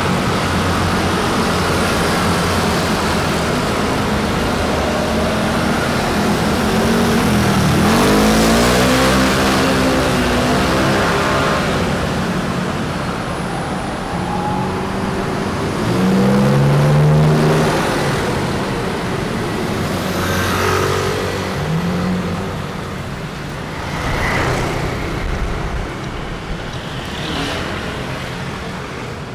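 Street traffic with motor vehicles passing close by: one engine is heard accelerating about eight seconds in and another passes near the middle, over a steady roadway noise.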